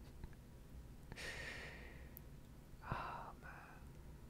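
A person sighing: a soft breathy exhale about a second in, then a brief murmured vocal sound near the three-second mark.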